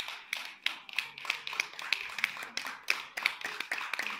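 Group of people clapping together in a steady rhythm, about three claps a second.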